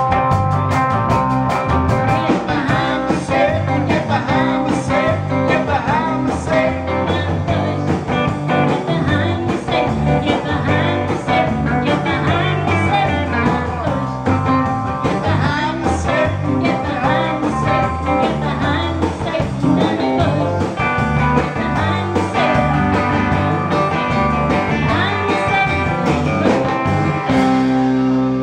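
Live band playing a country-rock song on electric guitars, acoustic guitar, bass and drum kit, with singing. Near the end the band closes on a long held final chord.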